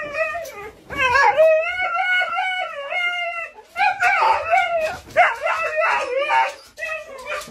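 A husky howling and 'talking' in a string of long calls that waver up and down in pitch, separated by short breaks. The longest call lasts about two and a half seconds.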